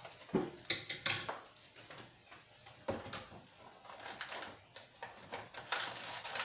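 Toy packaging being handled and opened: scattered clicks, taps and rustles of cardboard and plastic.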